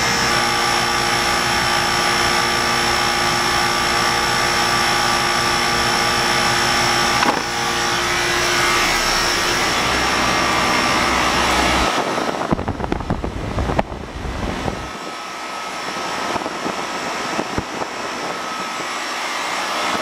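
3-ton Sanyo C3622 split-system outdoor condensing unit running: a steady hum from the compressor and condenser fan, with several steady tones. About twelve seconds in the sound turns rough and uneven for a few seconds, then settles lower and lighter, with the deep hum gone.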